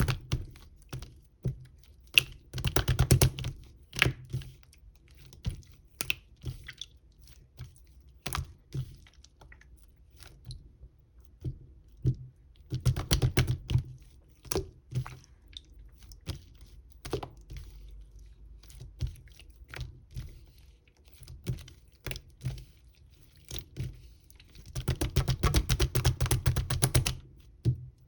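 Close-up clicking and crunching: dense runs of quick sharp clicks near the start, about 3 s in, about 13 s in and again near the end, with scattered single clicks between them.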